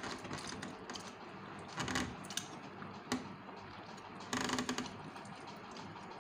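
Close-up eating sounds: soft chewing with small wet mouth clicks and lip smacks. There are brief louder bursts about two seconds in and again around four and a half seconds.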